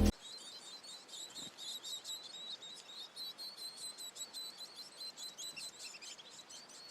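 Small birds chirping: a fast run of short, high, faint chirps that goes on without a break.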